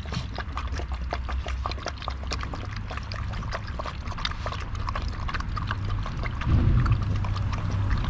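Several five-week-old Lycan Shepherd puppies lapping water from a plastic tub: a rapid, irregular run of small wet clicks and splashes. A low rumble underneath swells about six and a half seconds in.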